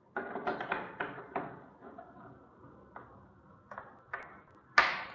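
A run of sharp clicks and knocks: several quick taps in the first second and a half, then a few scattered single clicks, the loudest about a second before the end.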